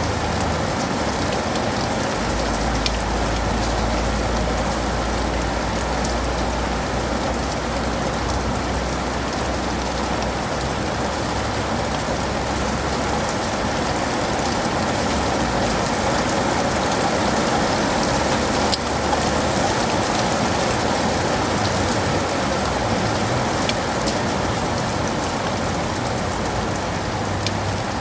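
Steady rain falling on leaves and pavement, a dense even hiss with scattered sharp drop ticks. A low rumble sits underneath from about two seconds in until about thirteen seconds.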